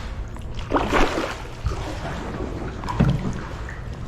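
Kayak paddle strokes dipping and splashing in the water, two louder strokes about two seconds apart, over a steady low rumble of wind on the microphone.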